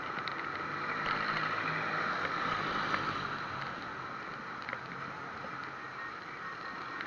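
Wind and road noise rushing over a cheap action camera's built-in microphone, mounted on the handlebars of a moving bicycle. A faint low hum swells over the first few seconds, then fades.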